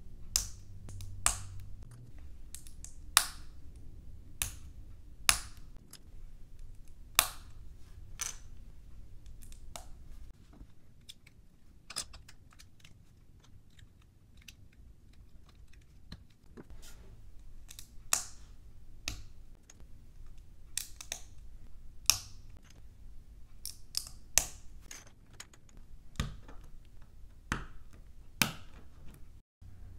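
Plastic LEGO bricks being pressed together and handled: irregular sharp clicks as pieces snap onto studs, with fainter handling rustle between. The clicks thin out for a few seconds around the middle, then pick up again.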